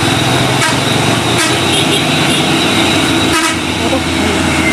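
Mitsubishi Fuso Fighter tanker truck's diesel engine running steadily as the truck drives close past, with three short sharp clicks.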